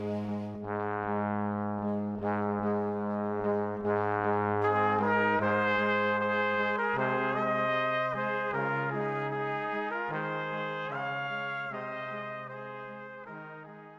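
Instrumental background music of long held notes that change chord every second or so, fading out near the end.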